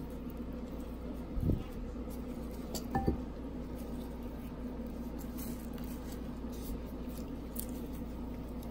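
Two short knocks against a stainless steel mixing bowl, about a second and a half in and again about three seconds in, the second a small clink that rings briefly, over a steady low hum.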